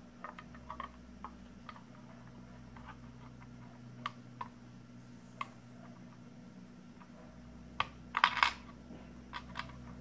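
Small clicks and scrapes of a plastic pry tool working a coin-cell CMOS battery out of its clip on a mini PC's motherboard. The ticks are scattered, with a short run of louder clicks near the end.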